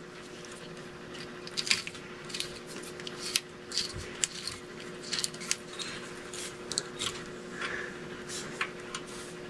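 Irregular small clicks and snips of electrical wire being trimmed and handled, with a faint steady hum underneath.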